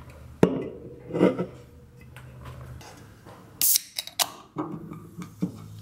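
Aluminium drink can being opened: a sharp knock half a second in, then about three and a half seconds in the ring-pull cracks the lid with a bright pop and short hiss, followed by a few small clicks of the tab.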